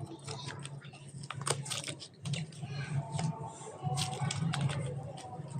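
Slime being squished and mixed by hand, giving off rapid, irregular sticky clicks and crackles.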